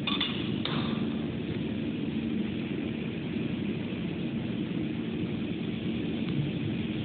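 Steady machine hum and hiss from a flatbed glass printer running, with a couple of light clicks in the first second.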